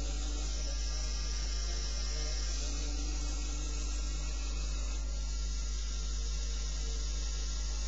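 A steady low electrical hum with hiss, over which the faint whir of the Lego Power Functions electric motors driving the RC truck wavers in pitch now and then.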